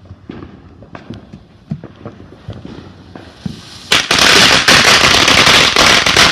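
Consumer firework going off: scattered pops, then about four seconds in a dense, loud run of rapid crackling and popping that stops sharply near the end.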